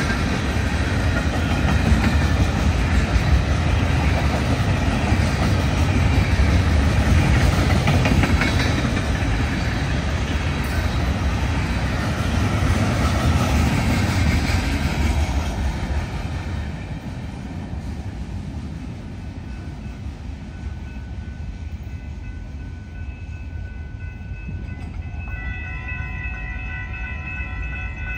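A freight train of empty rock hoppers and gondolas rolling past on the rails with a heavy rumble. The sound falls away about sixteen seconds in as the end of the train passes. Near the end a distant train horn sounds, several steady notes held together.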